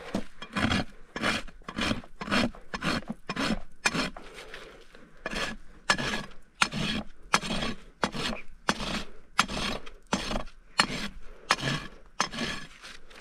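Farrier's hoof rasp being drawn across a horse's hoof wall in repeated strokes, about two a second, bevelling the quarters and heels during a barefoot trim.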